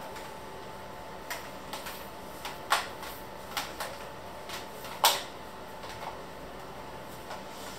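Scattered light knocks and clicks of kitchen things being handled, irregularly spaced, the loudest about five seconds in, over a steady low background noise.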